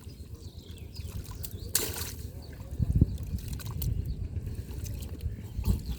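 Shallow river water sloshing and splashing, with a short splash about two seconds in and a few dull knocks around three seconds.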